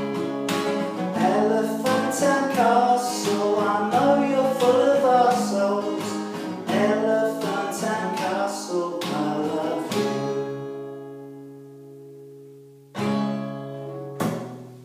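A man sings to a strummed acoustic guitar. About ten seconds in, the singing stops and a chord is left ringing and fading, then two final strummed chords about a second apart end the song.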